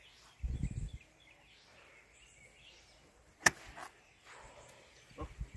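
A single sharp strike of a golf club on a ball about three and a half seconds in, against quiet outdoor background, with a brief low rumble near the start.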